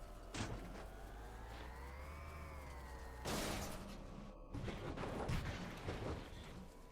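Rimac Nevera electric hypercar's motor whine, rising and then falling in pitch, with several rushing whooshes around it.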